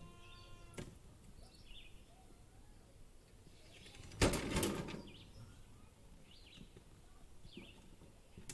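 Faint, scattered bird chirps, with a short burst of rustling noise about four seconds in.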